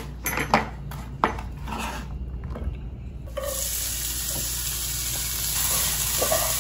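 A knife clicking and scraping on a cutting board as diced red onion is gathered up. About three seconds in, a steady sizzle starts as the onion goes into a pan of hot oil and is stirred.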